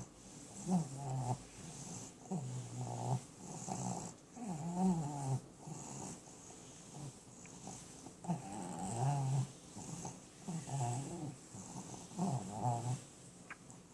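A dog snoring in its sleep, a pitched, rasping snore on each breath about every two seconds.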